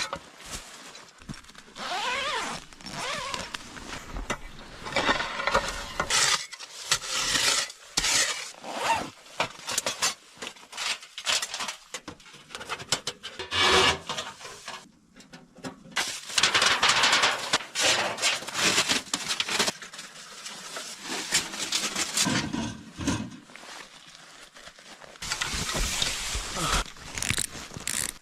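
Scraping and rubbing sounds of hands-on work, in uneven strokes and bursts, with a few brief squeaks near the start.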